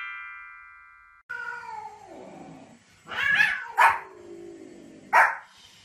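A bell-like chime rings and fades over the first second. Then a cat gives a long, falling meow, and a small white spitz-type dog barks sharply, twice.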